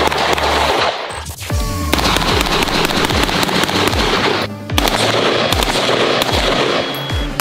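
Gunfire from semi-automatic rifles, many shots in quick runs with two short breaks, over background music with a deep, pulsing beat.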